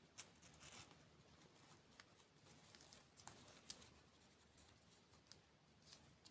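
Faint eating and food-handling sounds: a short rustle near the start, then a scattering of soft clicks and crackles.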